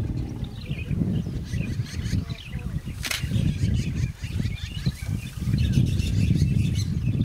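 Small birds chirping and twittering over a low rumbling background noise, with a single sharp click about three seconds in.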